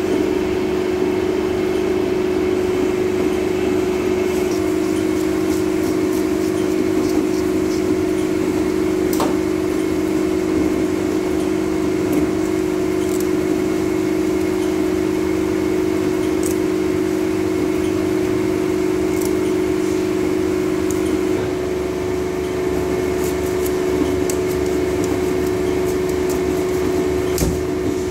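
Steady machine hum, with occasional scraping clicks from a fish being scaled on a plastic cutting board and the knock of a cleaver striking the board near the end.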